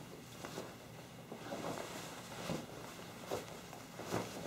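Faint, irregular rustling of a ninja gi jacket's fabric as arms are pushed into the sleeves and it is pulled up onto the shoulders.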